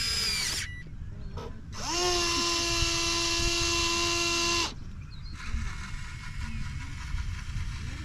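Small electric motor of a radio-controlled construction model whining: a short burst at the start, then a loud steady whine for about three seconds from near two seconds in, which stops abruptly, followed by a fainter higher buzz.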